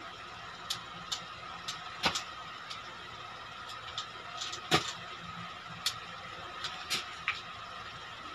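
Metal underarm crutches clicking and knocking as they are planted and swung through in a non-weight-bearing swing-through gait: a scatter of short sharp knocks at an uneven pace, the loudest about two-thirds of the way through, over a faint steady high hum.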